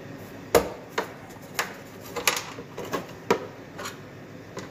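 Irregular sharp knocks and clatter, about eight in all, the loudest about half a second in, as an ice machine's sump pan is worked and knocked into its seat under the evaporator.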